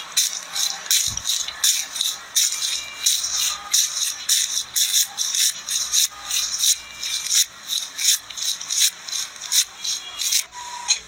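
Slime being squeezed and poked by hand, a steady run of short, crisp clicks and crackles, about two or three a second.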